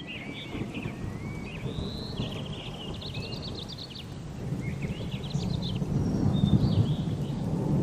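A low rumbling noise that grows louder about halfway through, with birds chirping and trilling high above it during the first part.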